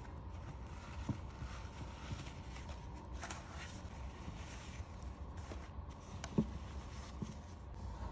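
Tissue paper rustling as it is pulled out of a pair of studded wedge espadrille sandals, with a few soft knocks as the shoes are handled on a tabletop; the loudest knock comes about six seconds in.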